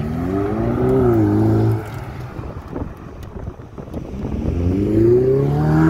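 Ferrari sports car engines revving hard as the cars accelerate away, twice. The first rising rev cuts off abruptly about two seconds in, and a second builds from about four and a half seconds and peaks near the end.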